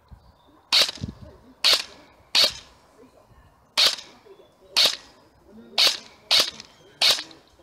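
Airsoft gun fired in single shots, about eight sharp cracks at uneven intervals of roughly a second.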